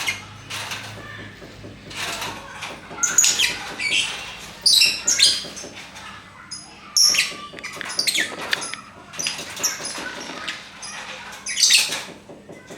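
Lovebirds chirping and chattering: short, sharp, high-pitched calls in irregular clusters, with several louder shrieks.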